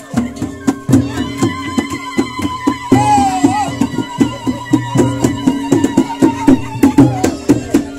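Traditional folk music: quick, even drumbeats over a steady low tone, with a long high note held from about a second in until near the end.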